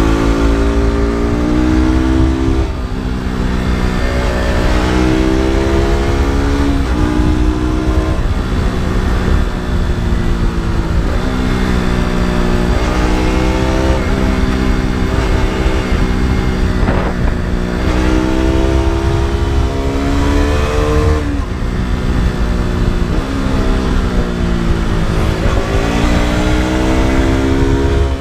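KTM RC 200's single-cylinder four-stroke engine pulling hard through its exhaust, the revs climbing and dropping again every few seconds as the rider accelerates, shifts and rolls off through the bends.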